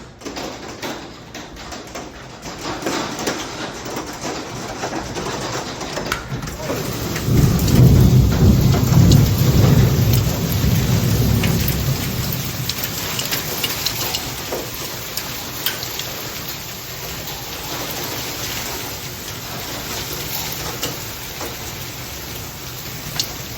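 Heavy rain and hail pouring down in a dense, steady hiss, with scattered sharp ticks of hailstones striking. About seven seconds in, a deep rumble swells and holds for about five seconds before easing back.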